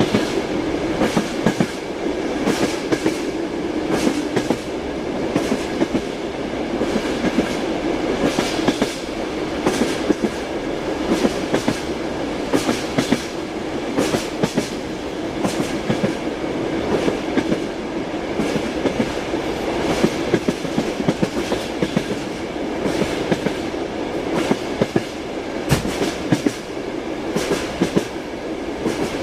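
Train wheels clickety-clacking over rail joints, heard from inside a passenger carriage: repeated knocks over a steady running rumble.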